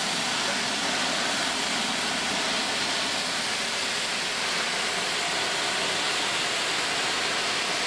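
Steady, even hiss of steam escaping from a GWR 64XX-class steam locomotive standing in steam, close to the cab.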